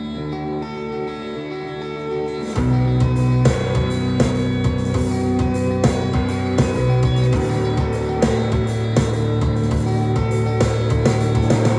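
Rock song playing from a vinyl record: a guitar intro, then the full band with drums and bass comes in suddenly about two and a half seconds in, with a steady beat after that.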